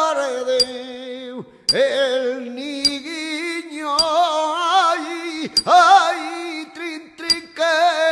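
Flamenco martinete song: one voice singing long, wavering melismatic phrases without guitar, over sharp ringing metal strikes that come roughly once a second, the anvil-and-hammer beat of the martinete.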